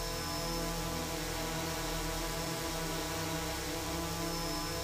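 Ingenuity Mars helicopter's twin counter-rotating rotors spinning at steady speed in a vacuum test chamber on Earth: an even hum made of many stacked steady tones.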